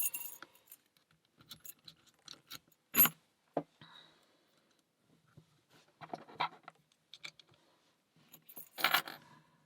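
Small metal clicks and rattles of a lock pick and tension wrench working the pin stacks of a brass Alpha 950 60 mm padlock, with a sharp click about three seconds in and denser bursts of rattling around six seconds and again near the end.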